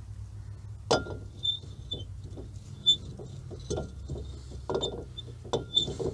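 Metal clinks and knocks as a brake rotor is fitted back onto the wheel hub: a sharp clank about a second in, another near three seconds, then a run of smaller knocks, over a steady low hum.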